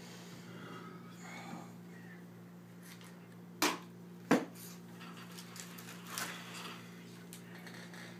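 Wooden under-bed drawer pulled open with two sharp knocks a little under a second apart, followed by faint rustling and small clicks as things in the drawer are handled, over a steady low hum.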